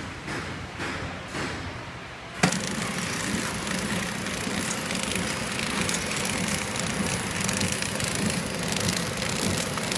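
Flow-wrap packaging machine running, with a rhythmic clatter about twice a second. After a sharp click about two and a half seconds in, it turns into a louder, denser, steady machine noise.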